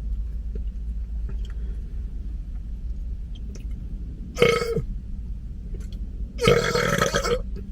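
A person letting out two big burps: a short one about four and a half seconds in, then a longer one about six and a half seconds in. A steady low hum runs underneath.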